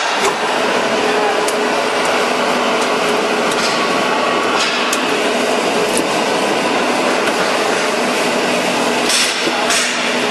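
Glazed-tile roll forming machine running, its rollers forming steel sheet into tile profile with a steady mechanical noise and a faint hum underneath. A few sharp clicks and knocks come through it, several close together near the end.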